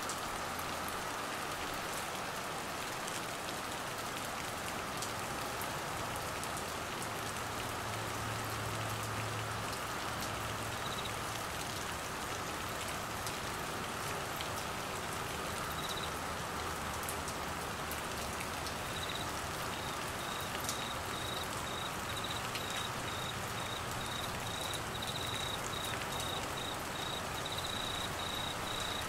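Steady heavy rain falling on trees, grass and standing floodwater. A cricket's high, pulsing chirp comes in briefly a third of the way through and keeps up almost without a break through the last third.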